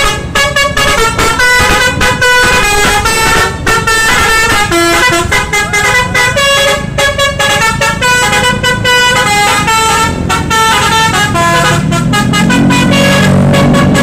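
Bus 'telolet' Basuri multi-tone musical horn playing a fast tune, its notes jumping in steps several times a second. About twelve seconds in, a lower steady drone comes in beneath it.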